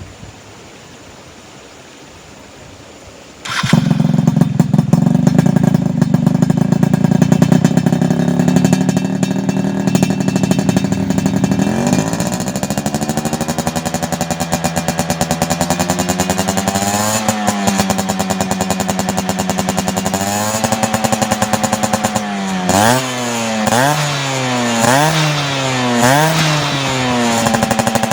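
Yamaha F1Z/F1ZR two-stroke single-cylinder motorcycle engine, breathing through an HTX racing exhaust, starting up about three and a half seconds in and running at idle. The engine then picks up to a faster idle, is blipped twice, and is revved in five quick blips near the end before settling back.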